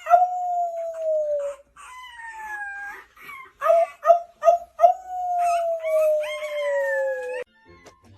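Dog howling in long, slowly falling notes, with a second, higher howl overlapping and a few short yips in the middle; it cuts off suddenly near the end.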